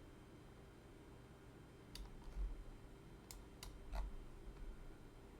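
Four sharp computer mouse clicks between about two and four seconds in, with low bumps alongside them, over a faint steady hum.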